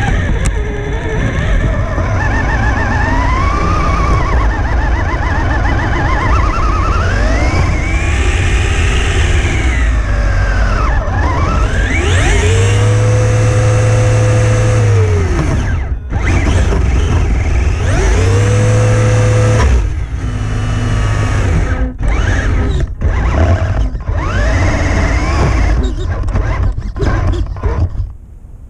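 Electric drive motor and gearbox of an RC rock crawler whining, the pitch rising and falling as the throttle is worked. Twice in the middle it holds at one steady pitch at full speed, and it cuts out near the end.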